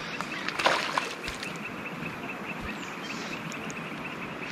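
Steady, fast-pulsing insect chirring with a short rushing noise a little under a second in.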